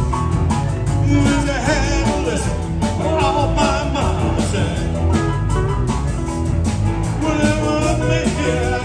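Live rock band playing together: electric guitars, electric bass, drums and piano.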